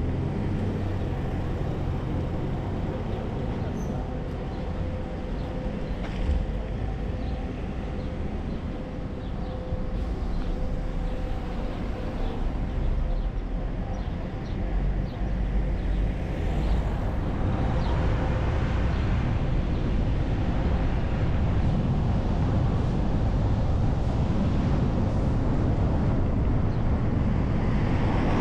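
City bus pulling away from a stop and driving on, its engine and tyre noise a steady rumble that grows louder about halfway through as it gathers speed. A faint steady whine sits over the rumble in the first half, then fades.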